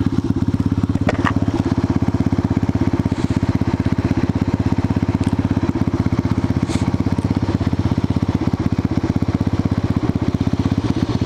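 Buell Blast's single-cylinder engine idling steadily with an even, fast pulse. The idle is set a little high. A couple of light clicks come about a second in.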